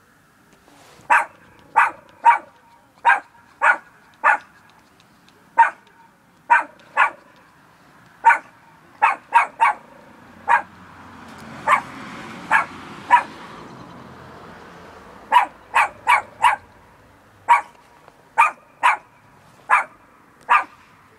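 Small fluffy black dog barking: about two dozen short barks, singly and in quick runs of two or three, at irregular gaps. A rushing noise swells and fades midway.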